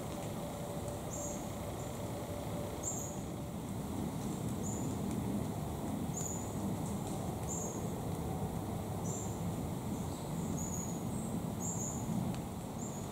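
A series of short, high-pitched chirps repeating about once a second from a small animal, over a steady low background rumble of outdoor noise.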